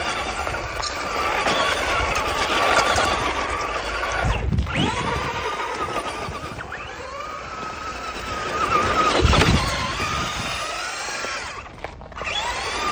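A small RC buggy's electric motor whining as it drifts on snow, the pitch rising and falling with the throttle and cutting out briefly a couple of times. Two short low rumbles come about a third and two-thirds of the way in.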